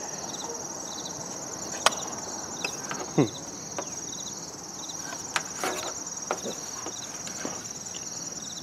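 Crickets chirping steadily in the background, with a few sharp clicks and knocks as a small folded aluminium chassis is handled and turned over.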